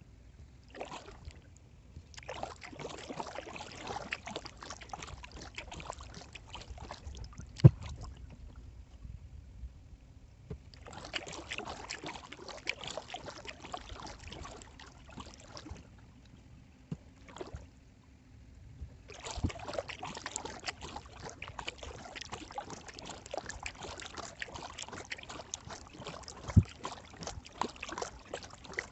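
Kayak paddle strokes: three spells of paddling with water splashing and dripping off the blades, broken by short quieter glides. Two sharp knocks stand out, one about eight seconds in and one near the end.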